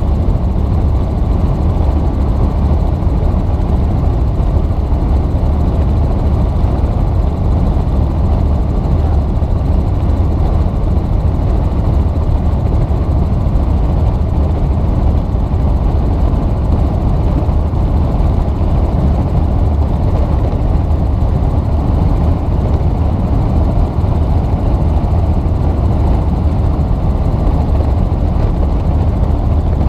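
Helicopter in flight, its rotor and engine running steadily, heard from inside the cabin: a loud, unbroken low rumble with most of its weight in the bass.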